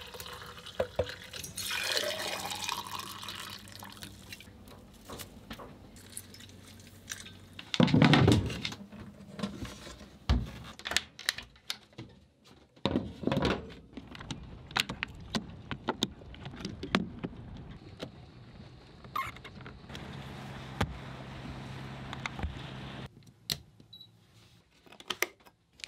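Hot tea poured from a glass jar into insulated tumblers, its pitch rising as they fill, then a run of sharp clicks and knocks with one heavy thump about eight seconds in. A steady hum runs for a few seconds near the end.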